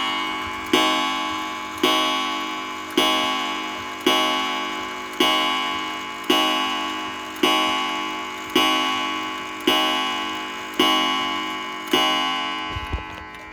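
Seth Thomas eight-day short-drop clock's count-wheel strike train striking twelve o'clock on its gong. Evenly paced strikes come about one a second, each ringing out and fading before the next.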